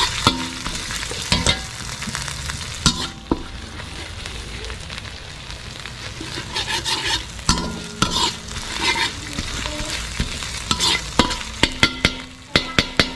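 Pounded fresh turmeric and chilli paste sizzling in hot oil in a pan, stirred with a spatula that scrapes and clicks against the pan. Near the end there is a quick run of clicks.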